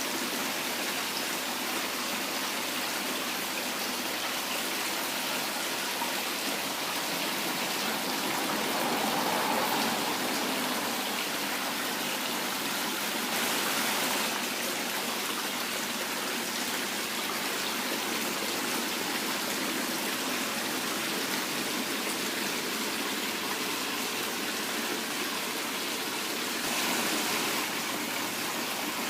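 Artificial decorative waterfall running: a steady rush of water falling and splashing, swelling briefly three times.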